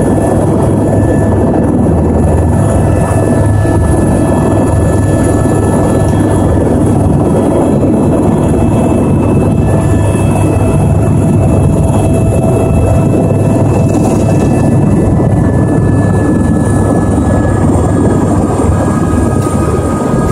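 Helicopter turbine engine and rotor heard from inside the cabin while the helicopter is on the ground: a loud, steady rumble with a high turbine whine. The whine drops slightly in pitch about three-quarters of the way through.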